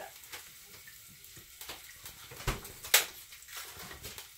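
Scattered clicks and knocks of kitchen utensils against pans and dishes, with a dull knock about two and a half seconds in followed at once by a sharp clack, the loudest sound.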